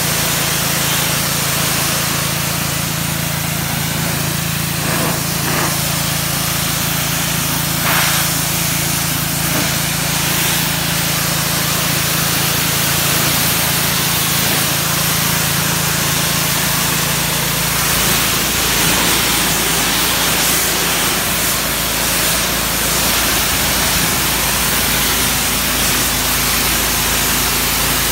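Ryobi 2900 psi gas pressure washer running steadily, its high-pressure spray hissing against a van's body panels and the concrete. The low engine note shifts partway through.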